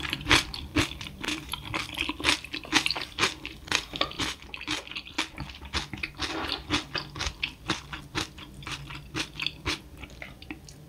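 Close-miked chewing of food in the mouth: irregular wet clicks and smacks several times a second, thinning out near the end.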